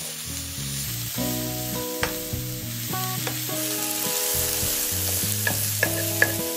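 Food sizzling and frying in a hot pan while it is stirred, with a few sharp taps of the utensil against the pan.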